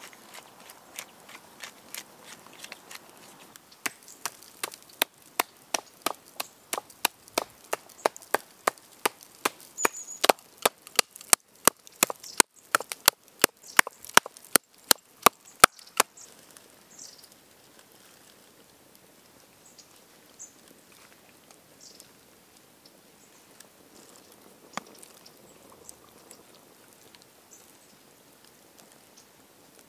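A run of sharp, evenly spaced chopping strikes, about three a second, from about four seconds in until about sixteen seconds in, getting louder and a little quicker toward the end. Faint rustling and scattered ticks before and after.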